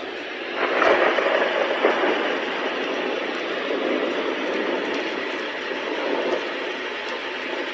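iDealSleep white noise machine playing one of its built-in sounds through its small speaker: a steady rushing noise with almost no bass that grows louder about half a second in and then holds.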